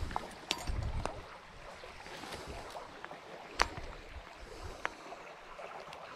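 Steady rush of a shallow creek, with wind buffeting the camera's microphone for about the first second. Over it come a few sharp clicks and taps from the fly rod, line and gloves being handled, the loudest about halfway through.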